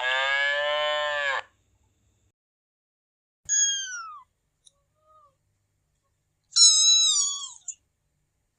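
A cat meowing three times: one long meow at the start, then two shorter, higher meows that fall in pitch, about three and a half and six and a half seconds in.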